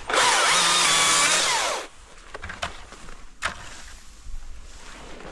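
Husqvarna 542i XP battery chainsaw run in one short burst of under two seconds, then released so the motor and chain wind down. Two sharp snaps follow.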